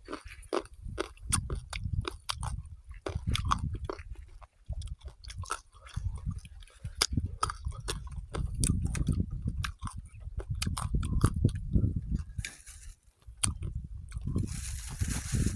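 A person chewing food close to the microphone, with repeated wet clicks and smacks of the mouth and a brief rustling hiss near the end.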